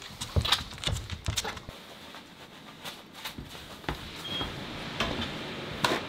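Irregular footsteps and knocks, giving way to a steady rush of wind about four seconds in, with a brief high squeak just after it starts.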